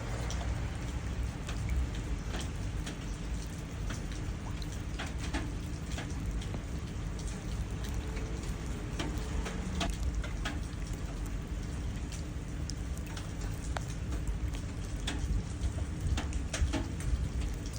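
Steady rain falling and splashing into puddles, with many separate drops ticking sharply over a low wash of rain noise.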